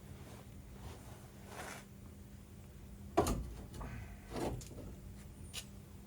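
Tools and brake parts being handled during car brake work: soft rustling, then a sharp clank about three seconds in, a second knock a second later and a short click near the end.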